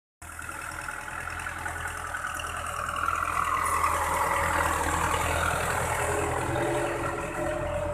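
Belarus 510 tractor's diesel engine running steadily while it pulls a laser land leveler through soil. It grows louder as it passes close, from about three seconds in.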